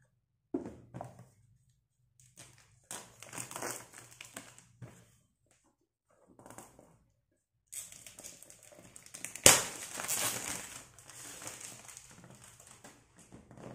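Clear plastic shrink-wrap being peeled off a cardboard phone box and crumpled, in irregular crinkling bursts, with one sharp, loud crackle past the middle.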